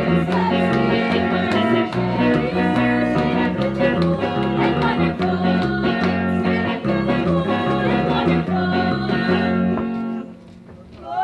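Small band playing: electric bass and guitar with a singing voice, in a steady dance rhythm. The music drops away about ten seconds in.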